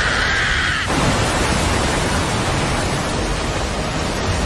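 A young man's strained scream breaks off about a second in and gives way to a loud, steady rushing noise: the wind blast of an animated super-powered punch sweeping through shattered ice.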